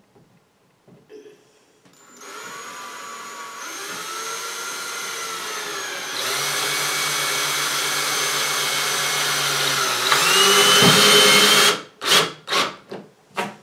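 Ridgid 18V cordless drill running as it drills into a drywall wall. The motor whines steadily, speeding up and getting louder twice, then stops, followed by four short bursts from the trigger.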